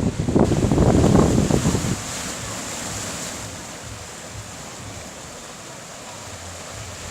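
Sea waves washing on the shore, with wind buffeting the microphone as a loud, gusty rumble for the first two seconds; after that the surf settles into a steadier, quieter wash.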